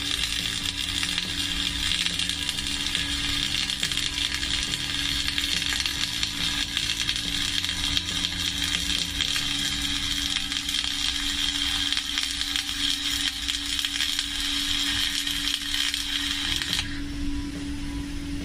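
Flux-cored arc welding with rutile flux-cored wire: the arc crackles and hisses steadily with spatter, then stops near the end. Background music runs underneath.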